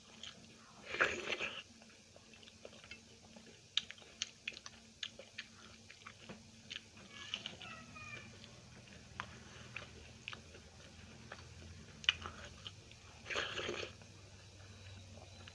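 Close-miked eating: steady chewing with many small wet mouth clicks, and two louder crunching bites, one about a second in and one near the end.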